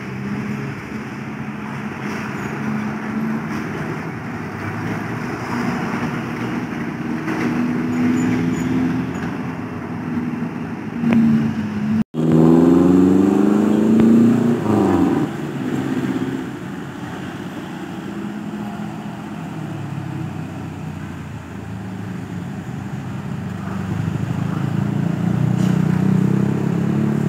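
Engines of passing trucks, cars and minivans pulling uphill one after another. Just past the middle the sound cuts out for an instant, then one engine revs hard, its pitch rising and falling for a few seconds.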